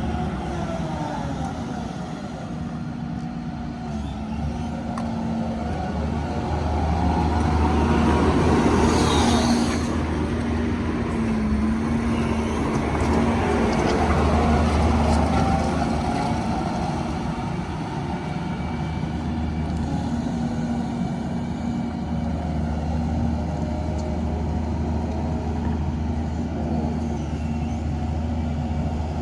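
Doosan DX170W wheeled excavator's diesel engine running steadily, swelling louder twice, about a third of the way in and again near the middle.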